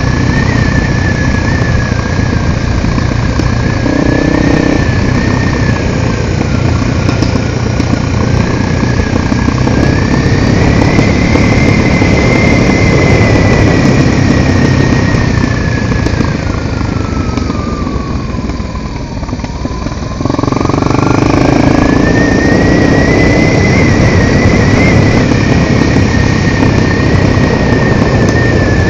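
A Honda XR250 Tornado single-cylinder motorcycle being ridden, its engine running under way with a loud steady rush of noise. The engine eases off at about nineteen seconds and picks up again just after twenty.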